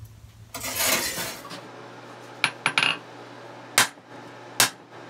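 A rushing noise for about a second, then a handful of sharp metallic clinks and strikes, steel on steel, with a brief high ring: a red-hot steel bar being handled and struck at the forge.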